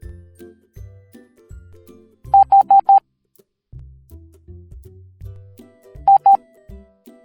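Morse code tone beeps over light background music: four short beeps about two seconds in, the Morse letter H, then two short beeps near the end, the letter I.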